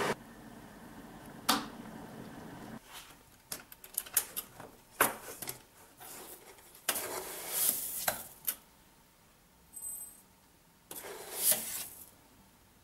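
A faint hiss and a sharp click in the first seconds. Then a metal coffee tin is handled: its clasp lid clicks and clatters open in a quick string of metallic taps, and near the end a spoon scrapes and scoops ground coffee out of the tin.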